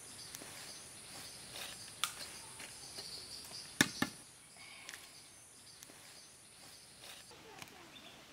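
Metal slotted skimmer clinking and scraping against an aluminium plate lid heaped with hot charcoal, spreading the coals over a clay biriyani pot for dum cooking: a few sharp clicks, the loudest two close together about four seconds in. Behind it a steady high insect-like hum that stops near the end.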